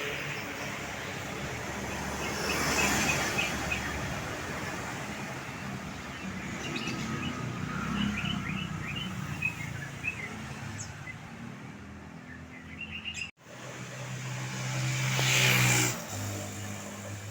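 Roadside traffic: vehicles passing by, with birds chirping in between. The sound drops out abruptly for an instant about 13 seconds in, then a heavy engine hum swells as another vehicle passes close.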